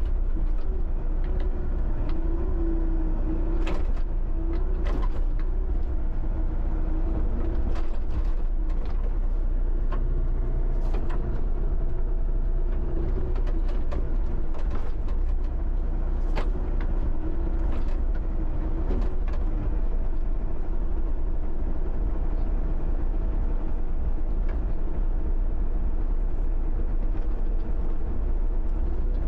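John Deere 60D mini excavator's diesel engine running steadily under working load, with scattered sharp knocks and clanks.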